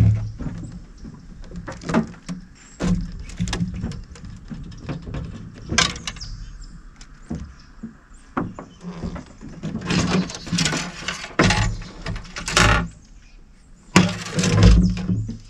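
Irregular knocks, clicks and clatter in a small fishing boat as a freshly caught fish is unhooked and handled, with the fish, rod and tackle bumping against the boat. The knocks come thickest about ten to thirteen seconds in and again near the end.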